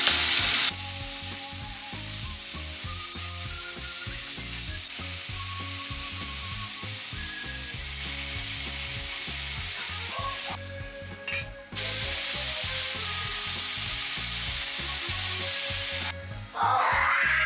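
Sliced onion, leek and shimeji mushrooms sizzling in a stainless steel pot as they are stirred, over soft background music. The sizzle is louder for the first moment, then steadier and quieter, and breaks off briefly about ten seconds in.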